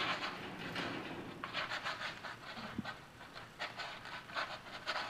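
Kitten scrabbling on a metal wire cage door as it clambers down, the door rattling and its claws scraping on the bars in several short bursts.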